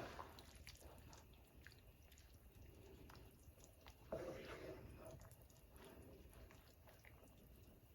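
Near silence with faint wet squishing and a few soft clicks, as linguine is tossed in a cream sauce in a pan; a slightly louder stretch about four seconds in.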